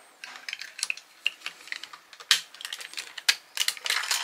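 Hard plastic and die-cast metal parts of a large collectible robot figure clicking and knocking against each other as they are handled and fitted together: a run of irregular sharp taps, two of them louder about two and three seconds in.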